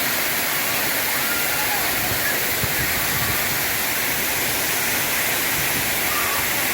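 Artificial waterfall: a steady, dense rush of falling water crashing into a pool. Faint voices of people can be heard behind it.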